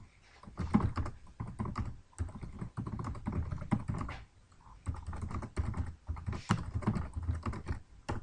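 Typing on a computer keyboard: quick, irregular runs of key clicks with a few brief pauses.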